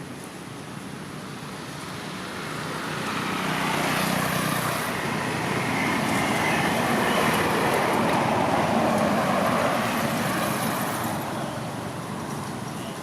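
A road vehicle passing by: its noise swells over a few seconds, holds, then fades away.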